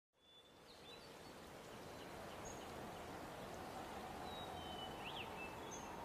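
Faint outdoor ambience fading in: an even hiss of background noise with scattered short bird chirps.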